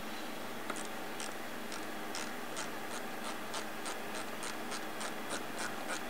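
Quarter-inch ratchet clicking in a steady run of short ticks, about two or three a second, as it tightens a hose clamp on a block-off cap over the PCV port.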